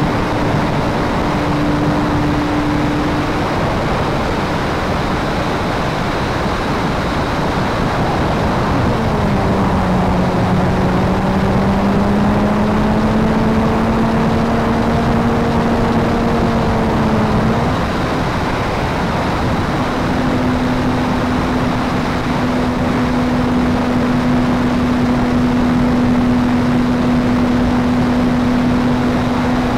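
P-51 Mustang's engine and propeller droning in flight under heavy wind rush on the onboard microphone. The engine pitch drops sharply about nine seconds in, creeps back up, breaks off, and holds steady again from about twenty seconds on, following throttle changes through the manoeuvres.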